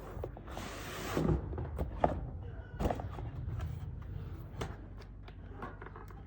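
Packaging handled while unboxing a portable blender: a short rustle, like plastic or paper being pulled, about half a second in, then scattered knocks and taps of the box and its contents.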